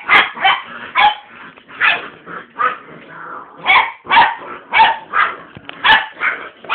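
Young American Akita cross puppies, about six and a half weeks old, barking and yipping in play: a quick run of about a dozen short barks, roughly two a second.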